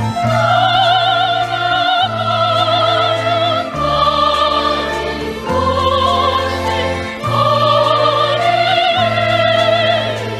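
A woman sings a Korean children's song solo in a trained, operatic style. She holds long high notes with a wide vibrato. Under her voice, the accompaniment holds steady bass notes that change about every second or two.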